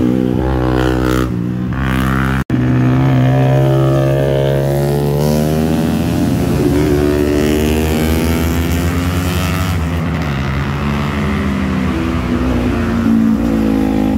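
Sport motorcycle engines revving hard through a bend, the engine note rising and falling with throttle and gear changes. The sound cuts out for an instant about two and a half seconds in.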